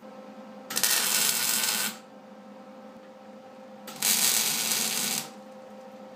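Wire-feed welder laying two tack welds on steel, each a crackling burst of about a second, the second starting about four seconds in. A steady hum runs between the two welds.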